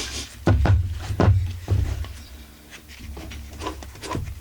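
A few sharp knocks and clicks, about four in the first two seconds, as the partly assembled chainsaw engine is handled on the bench.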